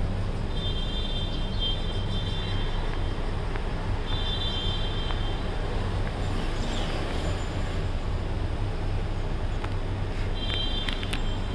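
Steady low mechanical rumble running throughout, with a thin high tone that comes and goes three times.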